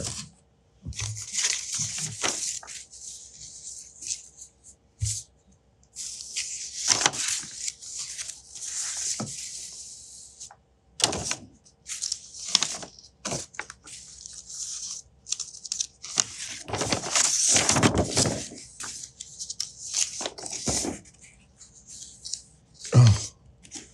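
Sheets of replica parchment-style paper rustling and crackling as they are handled and leafed through, in irregular bursts with short pauses between them.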